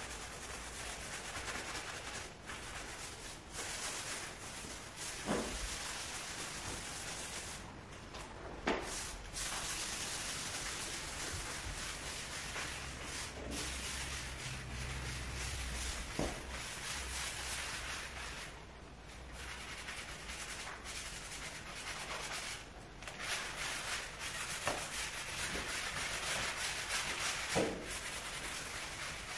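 Hand-held sponge scrubbing a wet wooden parquet floor: a scratchy rubbing in repeated strokes with short pauses, and a few light knocks.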